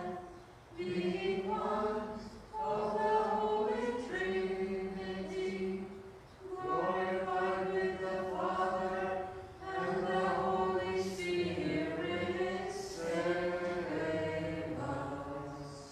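A cappella Byzantine-rite liturgical chant: unaccompanied voices sing four long, sustained phrases with short pauses for breath between them.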